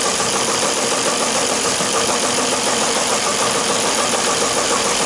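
Teletype Model 15 teleprinter running: its motor and mechanism make a loud, steady, rapid mechanical chatter. It chatters without printing anything, because the current loop is still open.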